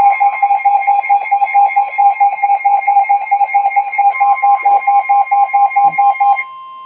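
Emergency alert attention tone: a loud, rapidly pulsing electronic beep, about eight pulses a second. It cuts off suddenly about six seconds in, leaving a fainter steady tone.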